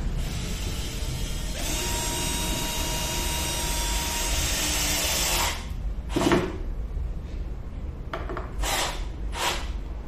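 Cordless drill driving a screw into a wooden panel: the motor runs steadily for about four seconds, then gives a few short bursts near the end.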